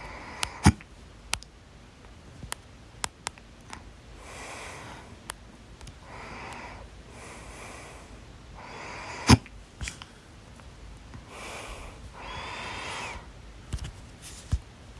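A person hiccuping: a series of sharp, sudden hiccups, the loudest about a second in and again about midway, with breaths drawn in and out between them.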